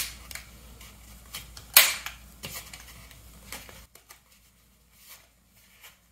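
Metal clicks and clinks as a Renault 671-4 piston with its rings is slid into a ring-fitting sleeve by hand. A sharp click at the very start and another about two seconds in, with lighter ticks between, then only faint ticks.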